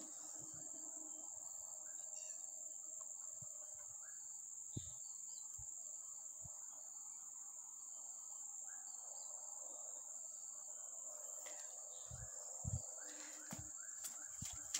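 Insects chirring in one steady, even, high-pitched tone. A few soft thumps come near the end.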